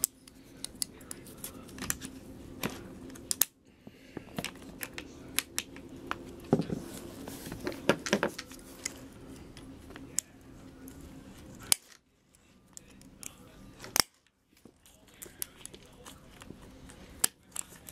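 Irregular small clicks and taps of a metal hand tool and plastic parts as an RC car's wheel hub assembly is worked apart by hand, over a faint steady hum.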